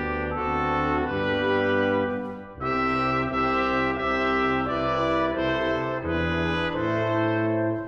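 Brass ensemble of trumpets, trombones and horns playing held chords in phrases. There is a brief break about two and a half seconds in, and another near the end.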